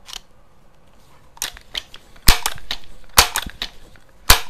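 Crosman 2100 Classic multi-pump air rifle being worked and pumped: a light click just after the start, a couple of small clicks, then three loud sharp clacks about a second apart as the pump lever is swung and snapped shut.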